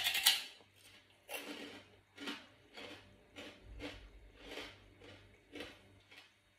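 A loud crunch as a bite is taken from a crispy pork rind (khaep mu), then close-up crunchy chewing, just under two crunches a second.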